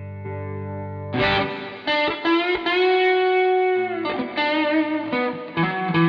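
Strat-copy electric guitar played through a Zoom G1Four multi-effects unit into a Hotone Nano Legacy Siva Boogie amp simulator, heard from its line out. A chord rings out, then a lead line of single notes starts about a second in, with one note held for about a second in the middle.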